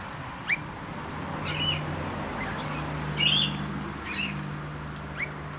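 A mixed flock of lorikeets and noisy miners calling: several harsh squawks and a few short rising chirps, over a steady low hum.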